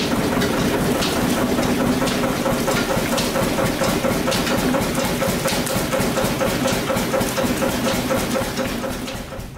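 A sugar cane roller mill running under power, with a steady, even rhythmic pulse a few times a second and scattered sharp clicks and knocks from the crushing rollers and drive. It fades down near the end.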